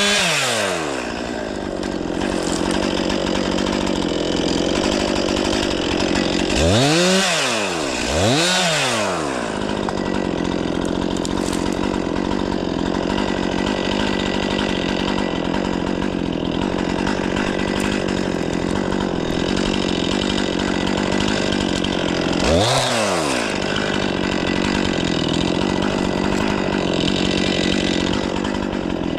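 Stihl 500i two-stroke, fuel-injected chainsaw running steadily. Its engine note swings up and back down four times: near the start, twice between about seven and nine seconds in, and once at about 23 seconds.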